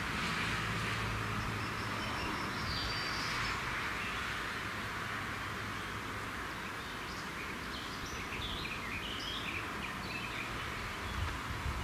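Birds chirping now and then over a steady outdoor hiss of wind and a distant passing car, the hiss fading over the first few seconds.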